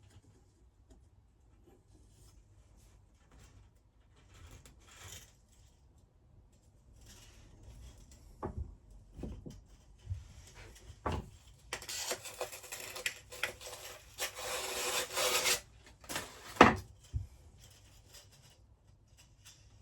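Scraping and rubbing as the electric melting furnace's heating element is worked loose and pulled from the furnace body, with a few knocks, a long scrape in the middle and one sharp knock near the end.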